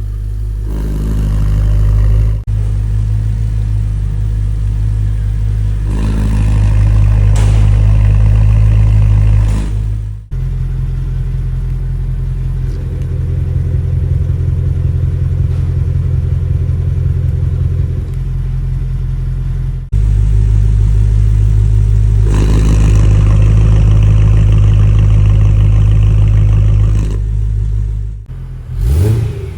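2011 BMW M3's S65 V8 running steadily through a stainless steel valved axle-back exhaust, heard in several takes that change abruptly about 2.5, 10 and 20 seconds in, the middle take with a different note.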